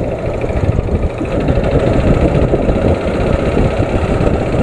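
Motorcycle engine running while being ridden, with a steady rush of wind and road noise on the microphone.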